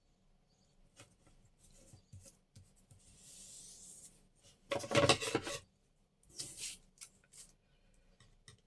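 Paper and washi tape being handled and rubbed down by hand: a soft hissing rub about three seconds in, then a louder scraping rustle about five seconds in and a shorter one a second and a half later.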